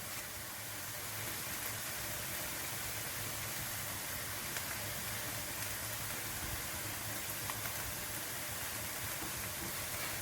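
Onions and peppers sizzling steadily in oil in a pan, an even hiss with a few faint pops.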